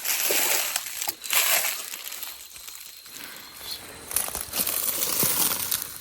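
Footsteps crunching and rustling through dry leaves and brush on the forest floor, in uneven bursts with short pauses.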